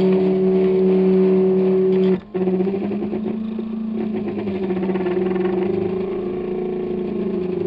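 3D printer's stepper motors whining as the print head moves: a steady two-note hum for about two seconds, a short break, then tones that keep shifting in pitch as it prints on a patch of duct tape.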